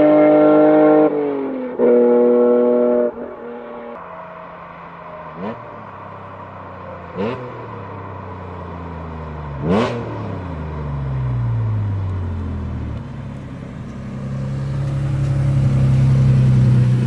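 Honda NSX V6 on a freshly built, loud aftermarket exhaust, revved in place. It is held at high revs, drops back after about a second, and is held up again briefly around two seconds in. It then settles to idle, with three sharp throttle blips, the last the loudest, before the note builds up again near the end.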